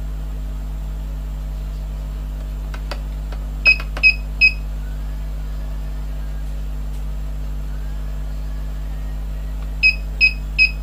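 Digital DC power meter beeping as its setting button is pressed, stepping through its setup menu: three short high beeps about four seconds in and three more near the end, with a few faint clicks. A steady low electrical hum runs underneath.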